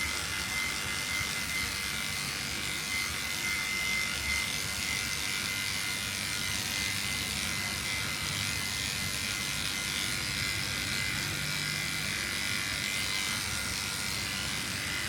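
Electric grooming clippers running steadily, with a thin high whine over a hiss, as they work over a cat's coat.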